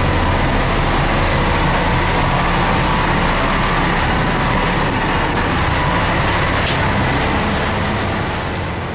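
Dive boat under way at speed: a steady low engine drone mixed with the rush of the churning wake, easing off slightly near the end.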